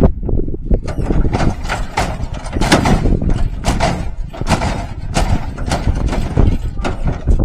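Lowrider on hydraulics hopping, the car body and wheels banging down repeatedly, two or three sharp bangs a second over a low rumble.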